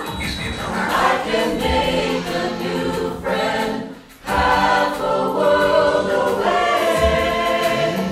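A mixed group of men's and women's voices singing together in harmony, breaking off briefly about four seconds in and then coming back in.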